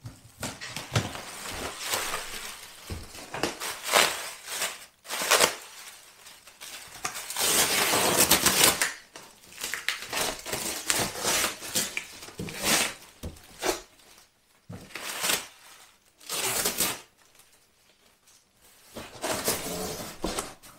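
A cardboard box being worked loose and lifted out of a larger shipping carton: cardboard scraping and rustling against plastic packing wrap in irregular bursts, the longest and loudest from about seven to nine seconds in.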